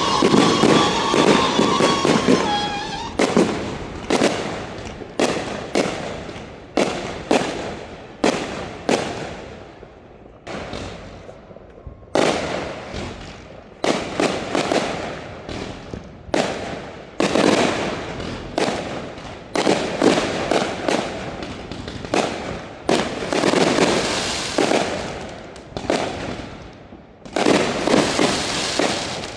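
Fireworks show: aerial shells going off one after another, each a sharp bang with a fading echo, irregularly spaced. The bangs thicken into a dense crackling flurry near the end.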